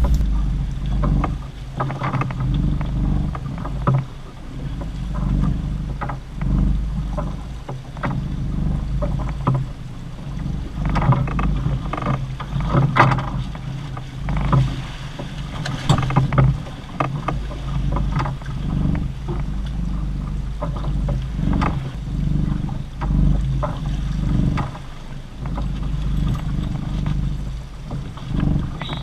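Sounds of a small fishing boat at sea: a steady low hum with water and wind around the hull, and irregular knocks and clicks throughout as a fish is reeled in and landed.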